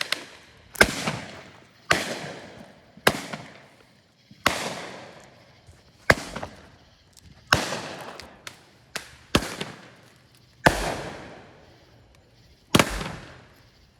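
Fireworks going off outdoors: a run of about ten sharp bangs, roughly one every second or so, each followed by a crackle that fades out over about a second.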